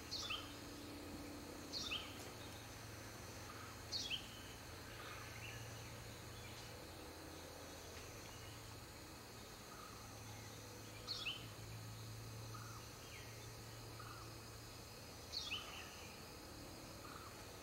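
A bird calling in short, high, quickly falling notes, each a quick pair, five times at uneven gaps of two to seven seconds, over a faint steady hiss and low hum.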